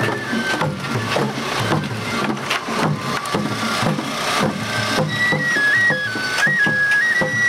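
Japanese festival bayashi from a float: taiko drums beat a steady rhythm while a shinobue bamboo flute plays a high, stepped melody. The flute drops out just after the start and comes back about five seconds in.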